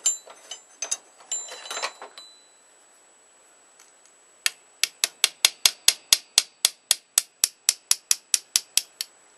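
Small hammer tapping out an old rivet from a clasp knife handle: a quick, even run of sharp metal taps, about five a second for four seconds, starting about halfway in. Before it, a few seconds of metal parts clinking as they are handled.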